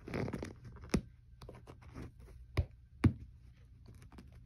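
A kitten clawing and scratching at the inside of a storage box: a rustle at first, then light scratching broken by a few sharp taps, about one second in and twice around the three-second mark.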